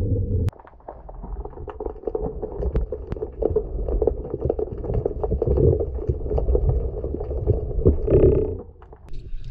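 Underwater sound picked up through a speargun-mounted camera's housing: low rumbling water noise with many scattered clicks and crackles. A buzzing tone cuts off about half a second in, and a short buzz like it comes near the end.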